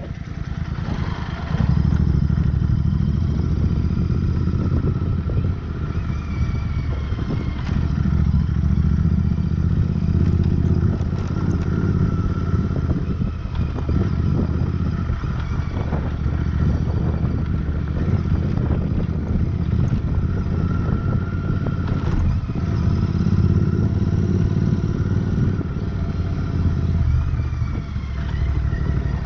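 Royal Enfield Interceptor 650's parallel-twin engine running at low speed as the bike rides down a rough dirt trail, its level rising and falling with the throttle.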